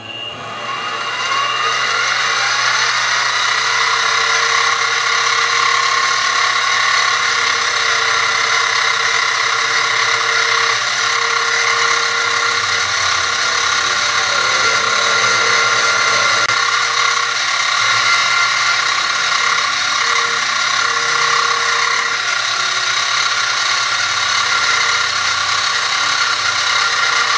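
X2 mini-mill spindle spinning up and then running steadily with a high, multi-toned whine as the drill bit bores through a small metal block.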